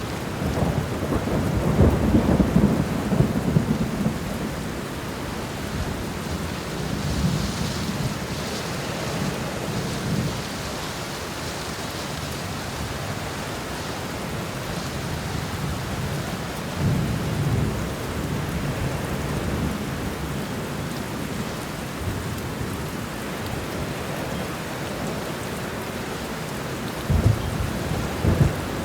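Steady heavy rain with thunder rolling in and out: several low rumbles, the strongest in the first few seconds and another sharp one near the end.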